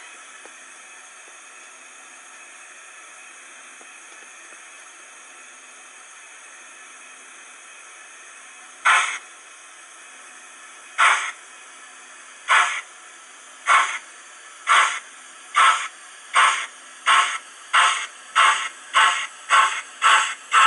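Sound-decoder steam exhaust of a model Manning Wardle 2-6-2 tank engine, played through its onboard speaker: a steady soft hiss of the engine standing, then about nine seconds in the exhaust chuffs begin, slow at first and quickening steadily as the engine pulls away.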